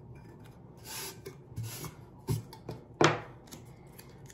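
Hands working blue painter's tape onto a stainless steel tumbler: a few short rubbing, ripping noises and several light knocks, the sharpest about three seconds in.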